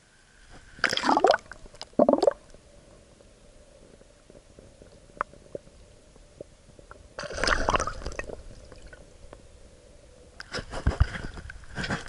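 Water sloshing and gurgling around a camera dunked for a largemouth bass's release: two quick splashes about a second apart, a muffled underwater stretch with a faint steady hum, then a longer splash midway and more splashing near the end.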